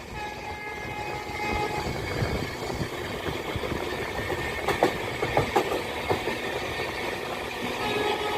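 Train running on the rails with a steady rumble, and a quick run of sharp clacks about five seconds in as the wheels cross rail joints.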